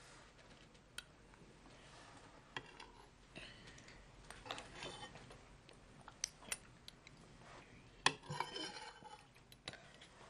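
Faint scattered clicks, taps and light scrapes of small objects being handled at a wooden kitchen table, over a low room hiss, with a sharper click a little after 8 seconds in.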